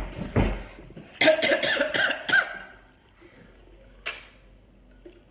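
A person coughing at the table while eating very spicy instant noodles, a few hard coughs in the first two and a half seconds. A short hiss follows about four seconds in.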